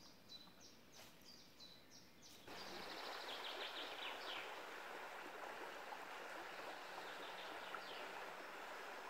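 Faint quick high bird chirps, about four a second. About two and a half seconds in they give way abruptly to the steady rush of flowing river water, with a few bird notes over it.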